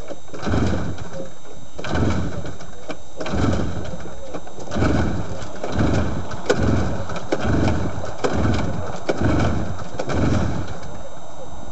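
Two-stroke snowmobile engine being pull-started over and over, about one pull every second or so, turning over without firing. It is being cranked to blow raw fuel out of a flooded crankcase.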